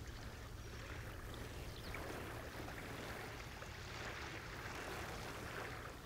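Faint, steady outdoor water ambience at a lagoon's edge, with a low steady rumble underneath.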